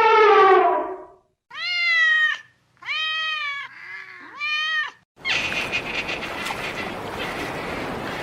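Domestic cat meowing: one long falling meow, then four shorter meows that rise and fall, over about five seconds. After that a steady hiss-like noise takes over.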